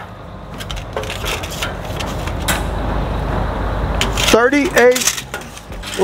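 Steel tape measure clicking and rattling against the steel square-tube frame of a homemade bandsaw mill as it is stretched across for a measurement, over a low rumble that grows louder. A man's voice murmurs briefly about four and a half seconds in.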